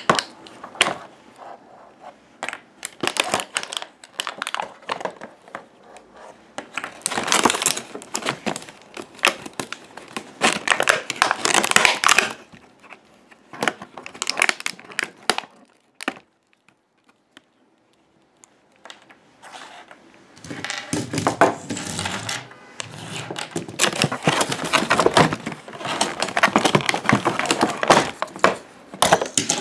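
Crinkling plastic packaging and clicks of plastic toy pieces being handled, in irregular bursts, with a pause of a few seconds past the middle.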